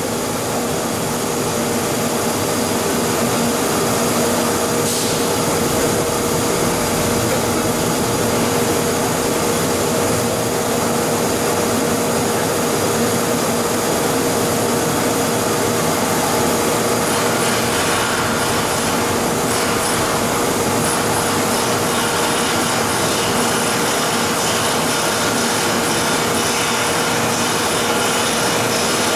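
YDN-85 plastic film recycling machine running steadily while waste plastic film is fed into it along its conveyor: a loud, even machine noise with a constant hum, turning a little harsher and brighter about halfway through.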